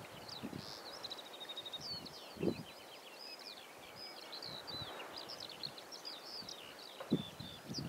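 Songbird singing a continuous high twittering song of rapid chirps and trills. Wind gusts on the microphone now and then, most strongly about two and a half and seven seconds in.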